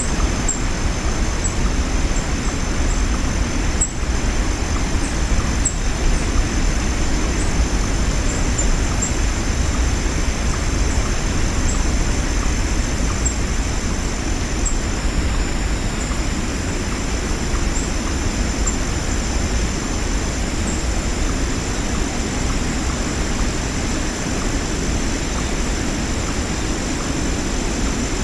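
Waterfall rushing steadily, heaviest in the low end, with a thin steady high tone over it and faint, brief high chirps scattered through.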